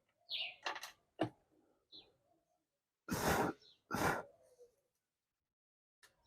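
Hand-work handling noises on the opened burner's wiring: several sharp clicks and knocks, then two short rasping noises about three and four seconds in.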